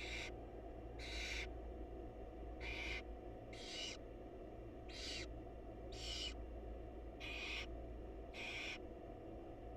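Barn owl nestlings giving their hissing begging calls: short raspy hisses repeating about once a second, over a steady low electrical hum from the nest-box camera.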